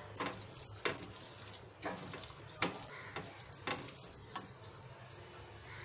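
Silicone spatula scraping and knocking against a nonstick frying pan while a cooled chicken and mayonnaise filling is stirred, with no sizzle. Light, irregular scrapes and taps come every half second or so.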